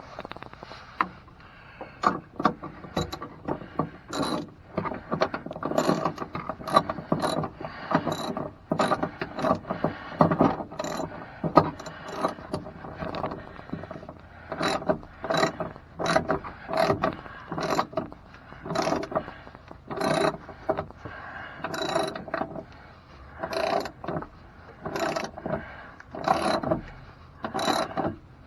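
Hand ratchet wrench being worked back and forth to tighten the step-rail mounting bolts, each stroke a short burst of pawl clicks, repeating at a steady pace of roughly three strokes every two seconds through the second half.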